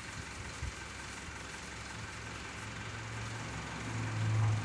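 Dump truck engine running steadily with the tipper bed raised while unloading sand, its low hum growing louder toward the end before easing off.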